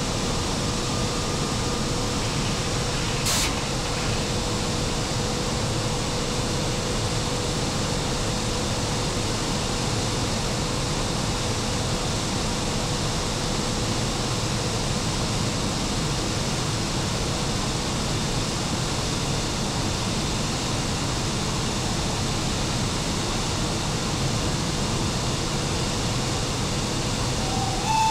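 Steady rushing noise in the machine room of an E 94 electric locomotive under way, its cooling blowers running, with a faint steady hum. A single sharp click about three seconds in.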